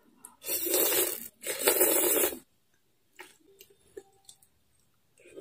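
Soupy noodles being slurped in off chopsticks: two long slurps of about a second each, back to back, starting about half a second in, and a third starting near the end.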